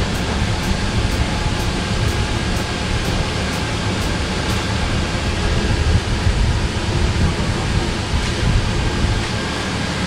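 Steady low rumbling noise with no clear beat or tone.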